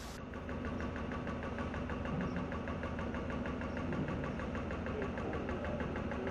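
Mobile crane's engine running steadily, with a fast, even ticking over a low hum.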